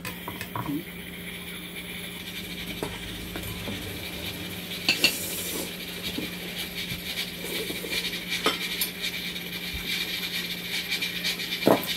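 People eating ramen at a table: chopsticks and spoons clicking and tapping against bowls and a metal pan, with a noodle slurp about five seconds in, over a steady background hum.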